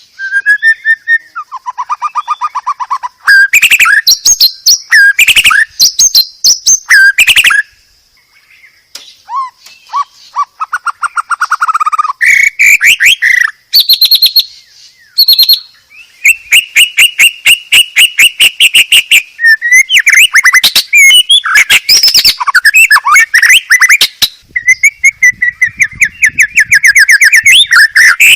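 White-rumped shama singing loudly in full agitated song: a long, varied run of rapid trills, chattering repeated notes and clear whistled phrases, with a brief pause about eight seconds in.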